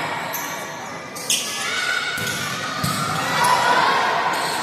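Volleyball being struck during a rally in a large gym hall: a sharp smack about a second in, then a few more hits of hands and forearms on the ball, over players and spectators shouting.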